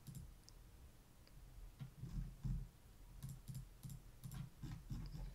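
Faint computer mouse clicks, a few scattered and irregular, with a small cluster a little past halfway, over a low hum.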